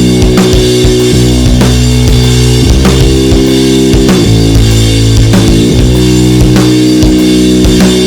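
Instrumental stoner doom metal passage: heavily distorted low strings hold long, sustained notes that slide in pitch near the middle, over a slow, steady drum beat.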